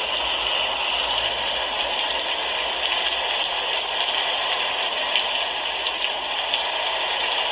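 Steady rain falling, a dense even hiss of drops with fine ticking.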